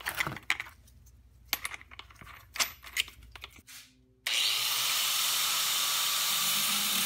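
Clicks and knocks as a metal cut-off wheel is fitted and locked onto a 4-inch Makita angle grinder. About four seconds in, a sudden, loud, steady grinding noise starts as the cut-off wheel bites into the stock exhaust pipe at the weld.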